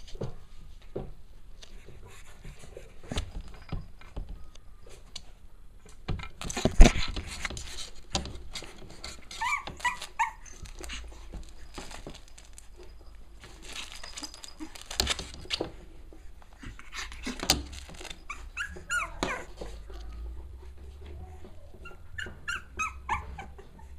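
Cavalier King Charles Spaniel puppies at play, giving a few short, high whimpering calls about ten seconds in, again near nineteen seconds and near the end. Scrabbling, rustling and knocks run between the calls, with one sharp thump about seven seconds in.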